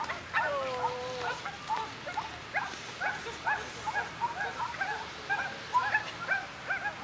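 Several high-pitched voices making short, overlapping yips and squeals, with one longer sliding call about a second in.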